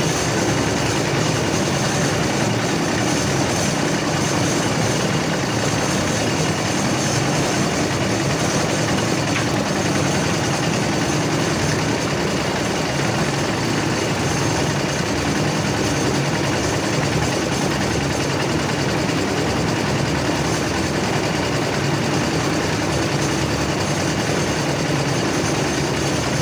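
Portable concrete mixer's engine running steadily, a continuous mechanical drone with no breaks.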